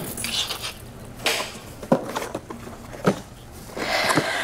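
Clear plastic takeout food container being handled and opened: a few sharp snaps and clicks of the lid, then a short crackle of plastic near the end.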